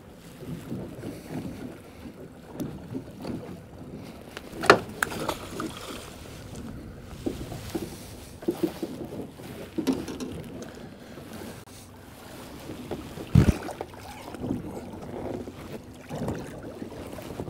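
Irregular knocks, bumps and clicks of handling on a small boat while an angler hauls a fish in by hand, over wind noise. Two sharper knocks stand out, about five and about thirteen seconds in.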